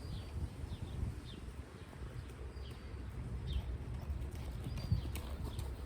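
Hoofbeats of a ridden horse clip-clopping, over a low rumble, with short high chirps of birds repeating throughout.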